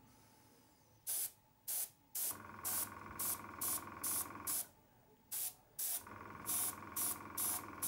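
Airbrush spraying Lexan paint onto the inside of a clear polycarbonate RC body in about a dozen short hissing bursts, a light first dusting coat. Under it a small air compressor hums, cutting out briefly in the middle and starting again.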